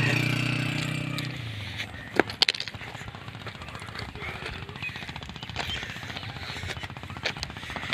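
Footsteps crunching on the loose stone ballast of a railway track: a dense run of irregular clicks and knocks, a couple of sharper ones a little after two seconds in. A low engine hum fades out during the first second and a half.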